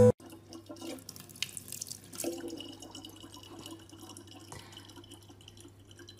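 Thin stream of water trickling from a gooseneck spout into the mouth of a large plastic water bottle, over a low steady hum. A brief loud buzz sounds at the very start.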